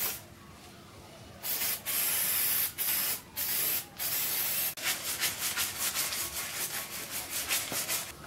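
Aerosol can sprayed into an engine's cast-iron cylinder bores in several hissing bursts with short gaps, followed by quick rubbing strokes, about five a second, of a rag on a rod scrubbing inside a bore.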